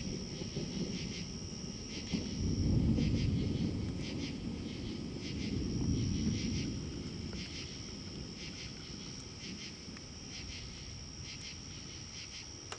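Distant thunder rumbling low, swelling about three seconds in and again around six seconds, over a steady high trill and repeated chirping of night insects.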